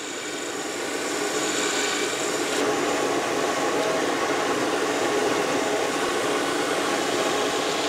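Workshop drill press and its dust-extraction hose running: a steady machine noise that builds over the first second and then holds level.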